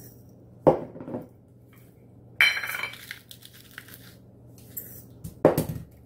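Salt and pepper grinders being handled over a bowl: a short rasping grind in the middle, with two sharp knocks as the mills are picked up and set down on a wooden tabletop.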